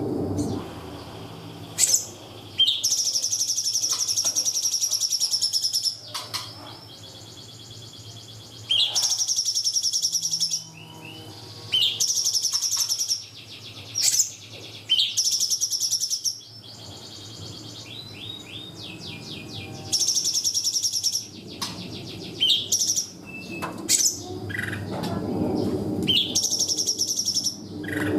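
Cungkok birdsong: repeated high, rapid trilled phrases, each lasting one to three seconds, separated by natural pauses filled with short sharp chirps and a quick run of falling notes.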